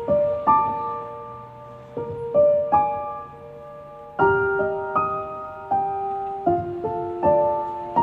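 Background piano music: slow, gentle notes and chords, each struck and left to ring and fade.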